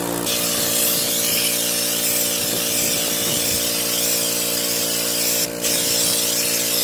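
Air-powered spray gun shooting Raptor bed-liner coating, a loud steady hiss of air that breaks off briefly about five and a half seconds in. A steady machine hum runs underneath.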